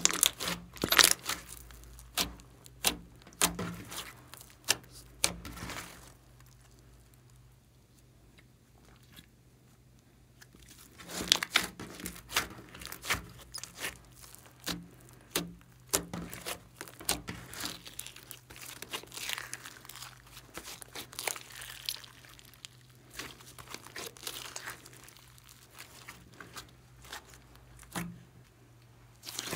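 Hands kneading and squeezing thick slime: wet squishing broken by many sharp crackling pops as trapped air bursts out. The handling pauses for a few seconds about six seconds in, then resumes with more irregular crackling.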